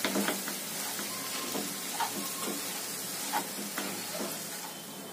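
Poha (flattened rice) being stirred in a hot nonstick kadhai with a slotted spatula: a steady low sizzle from the frying tempering, with scattered scrapes and taps of the spatula against the pan.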